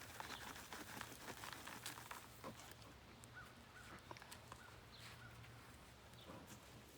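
Near silence with faint, scattered rustling and light scraping of hands digging through potting soil in a container.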